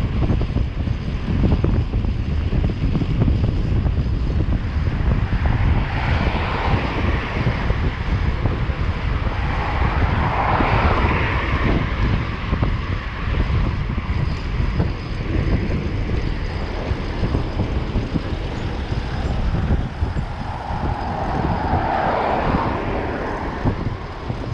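Wind buffeting the microphone in a steady low rumble while cycling through city traffic. Passing vehicles swell up and fade away three times: about six seconds in, around ten to eleven seconds, and again near the end.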